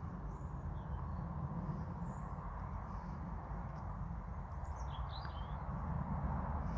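Steady low background rumble with a few faint, short high-pitched bird chirps, a small cluster of them about five seconds in.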